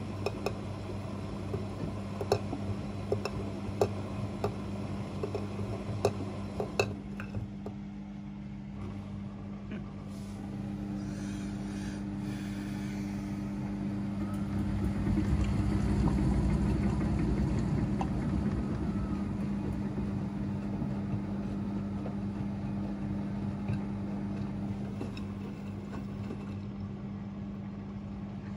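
Front-loading washing machines running a wash cycle, with a steady motor hum. Sharp clicks sound now and then during the first seven seconds, and a low rumble swells up and fades again around the middle.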